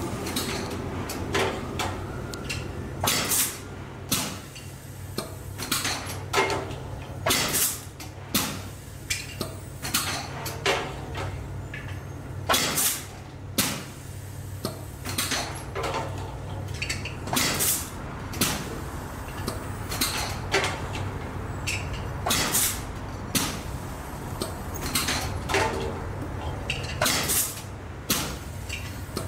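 Irregular mechanical clacks and knocks, roughly one a second, over a steady low hum, as from machinery at work.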